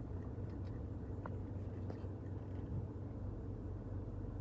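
Steady low hum inside a stationary car's cabin, the engine idling. A faint short chirp sounds about a second in.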